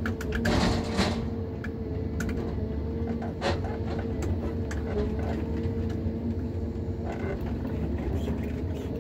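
John Deere 1210G forwarder running steadily with a held hydraulic whine, heard inside the cab while the crane works the logs. Scattered knocks and clunks come through, the strongest about half a second in and again about three and a half seconds in.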